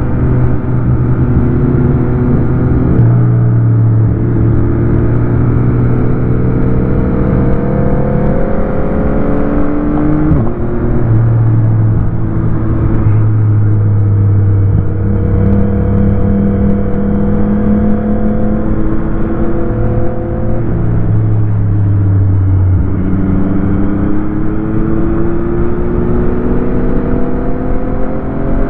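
Motorcycle engine heard from on board while riding. Its pitch climbs steadily as it accelerates, then drops back several times at gear changes or when the throttle is rolled off, over a constant rush of noise.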